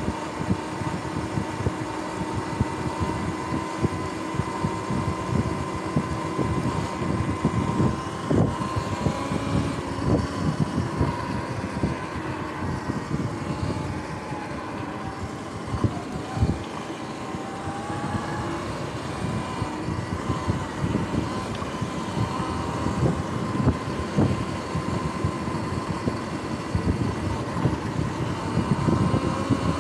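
Sur-Ron X electric dirt bike riding along a street: a steady high whine from its electric motor and drive that drifts slightly in pitch with speed, over rushing, gusting wind and road noise.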